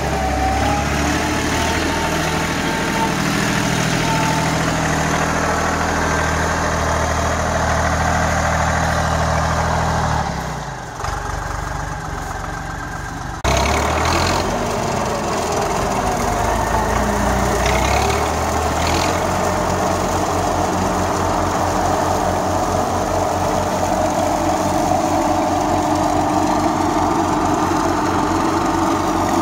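Holder A55 tractor's diesel engine running steadily. About ten seconds in its low note drops away for a few seconds before coming back abruptly, and later it runs with a fast, even low pulse.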